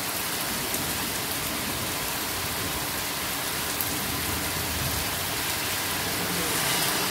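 Steady rain falling on grass, puddles and pavement, with a few faint drop ticks over the even hiss.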